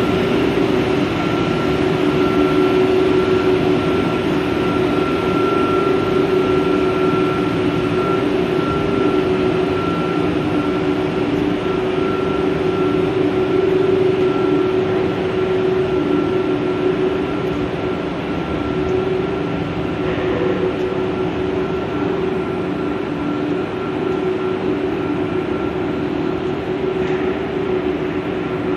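Steady machinery drone of a running PE pipe extrusion line for large 630 mm pipe, with a few steady tones over it, a little quieter in the second half.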